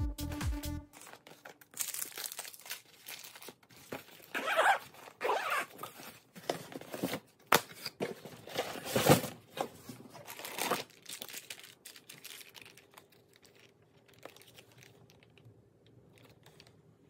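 Paper and plastic packaging crinkling and rustling in short, irregular bursts as it is handled and opened, quieter for the last few seconds.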